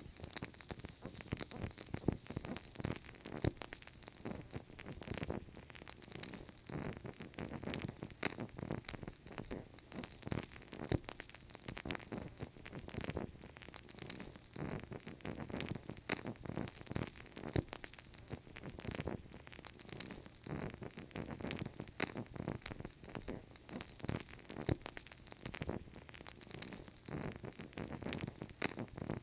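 Wood fire crackling in a fireplace: a constant dense scatter of small pops and snaps over a soft hiss.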